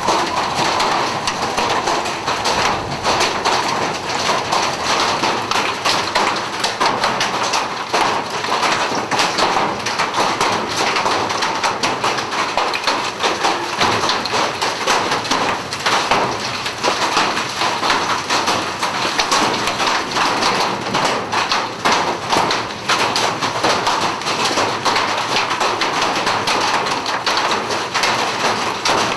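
Large hailstones, some the size of baseballs, pounding on a vehicle and the ground in a dense, continuous clatter of hard knocks.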